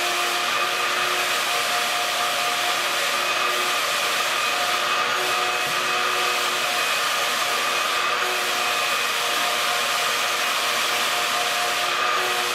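Wet/dry shop vacuum running steadily: an even rush of air with a whining motor tone, its pitch shifting slightly now and then.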